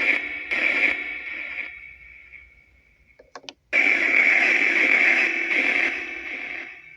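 Necrophonic spirit box app output: bursts of white noise and broken radio-like sound drenched in echo and reverb. Each burst starts suddenly and trails away: one at the start, another about half a second in, a few clicks just after three seconds, then a long loud burst from about four seconds in.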